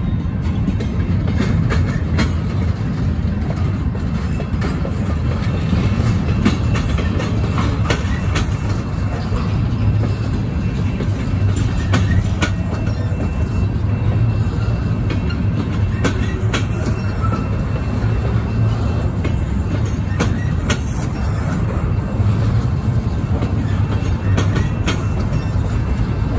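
Double-stack well cars of a CSX intermodal freight train rolling by: a steady low rumble of steel wheels on rail, with scattered sharp clicks and clanks from the wheels and car couplings.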